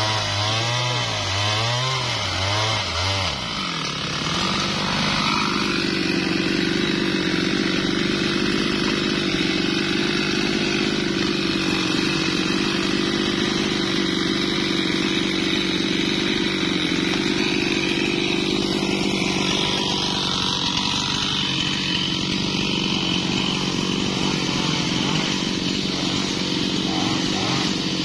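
Two-stroke chainsaw revving up and down several times during the first few seconds, then running steadily at idle.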